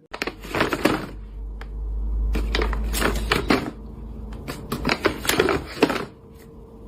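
Three short bursts of rapid clicking and clattering, like small hard objects knocking together, over a steady low rumble.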